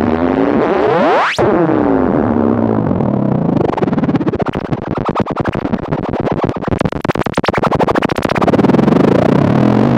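EMS VCS3 MkII analogue synthesizer making electronic sound effects. A cluster of tones sweeps steeply upward and cuts off about a second and a half in. A fast stream of clicking pulses follows through the middle, and sweeping tones come back near the end.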